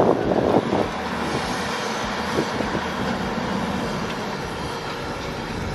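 Heavy machinery's diesel engine running with a steady drone, with brief voices in the first second.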